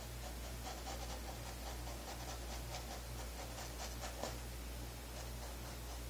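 Paintbrush scrubbing thin oil paint onto stretched canvas in quick, short scratchy strokes, thinning out after about four seconds, over a steady low electrical hum.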